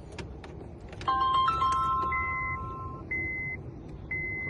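Ignition switched on during key programming: a few clicks, then an electronic chime of several tones about a second in. After that, a steady high beep repeats about once a second.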